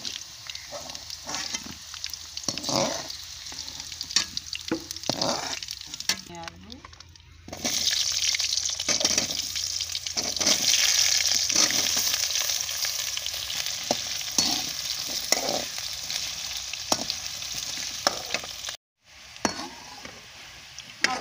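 Cauliflower florets and then potato cubes deep-frying in hot oil in a hammered metal karahi, giving a steady sizzle, with a slotted metal spoon scraping and clinking against the pan. After a short quiet break about seven seconds in, the sizzle is louder.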